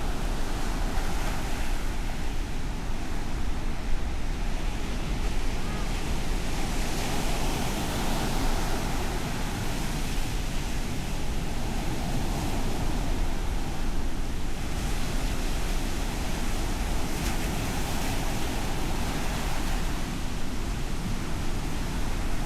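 Ocean surf breaking and washing up the shore, a continuous rushing that swells and ebbs as the waves come in, with wind rumbling on the microphone.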